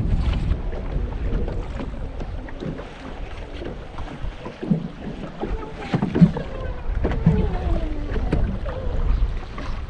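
Wind buffeting the microphone over waves lapping against a fishing boat's hull, with a few knocks on the boat, the loudest about six seconds in, and a faint tone sliding down in pitch soon after.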